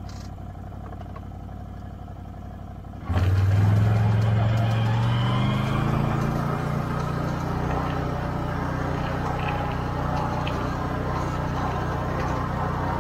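Can-Am Outlander XMR 650 ATV's V-twin engine running at a low steady speed. About three seconds in the sound jumps abruptly louder and the engine note climbs a little as it picks up, then holds steady.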